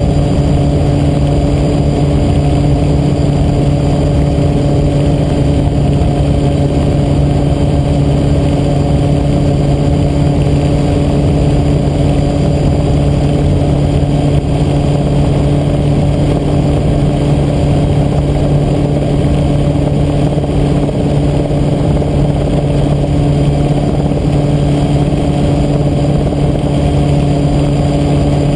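RotorWay 162F kit helicopter in flight, heard from inside its cockpit: the piston engine and rotors drone steadily at one constant pitch, with a low rumble underneath.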